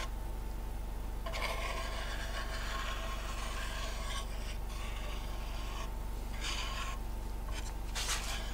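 A small hand spreader scraping across a wooden board through wet tabletop epoxy, spreading the coat out to the edges: one long stroke of about five seconds starting a second in, then shorter strokes near the end.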